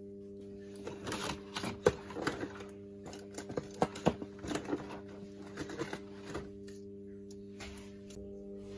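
Quick, irregular clicks and clatters of objects being handled and moved about on a cluttered workbench, dying away about six and a half seconds in, over a steady low hum.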